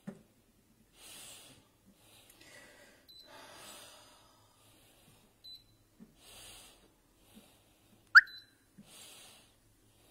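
Soft breathing close to the microphone while the control knob of a Cecotec Mambo 8590 kitchen robot is turned to set its timer, with a few faint short beeps. About eight seconds in comes a sharp click with a brief beep as the knob is pressed.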